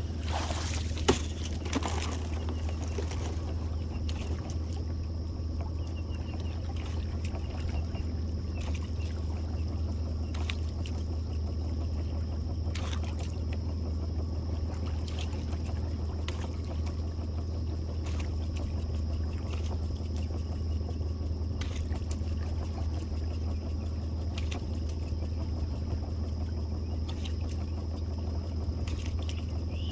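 Small boat's motor running at idle, a steady low hum, while the trotline runs over the side roller. Faint clicks come every second or two.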